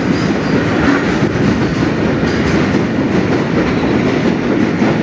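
Freight train passing close by, its wagons rolling along the rails with a loud, steady rumble.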